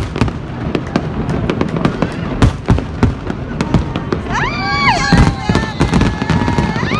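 Large aerial fireworks display: shells bursting in a rapid, continuous run of bangs and crackles. From about four seconds in, a drawn-out pitched cry rises and falls over the bangs.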